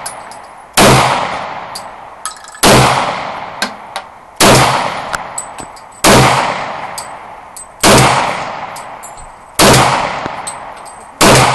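Handgun fired seven times at a steady pace, about one shot every second and three quarters, each report echoing and fading slowly before the next. Faint short ticks come between the shots.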